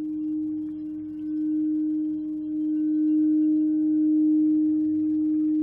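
A singing bowl sounding one steady low tone with faint higher overtones, its loudness slowly swelling and easing.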